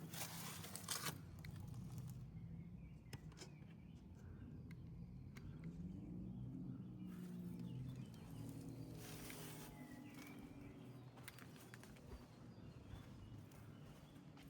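Faint footsteps on a stone path, with scattered light clicks and a couple of brief scuffs, over a low background hum.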